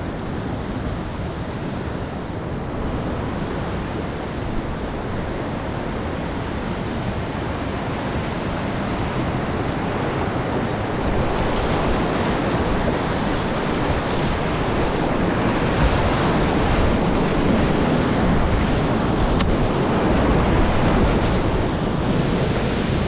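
Rushing whitewater of a swollen creek rapid, heard from a kayak on the water, growing louder about halfway through as the boat runs into the rapid.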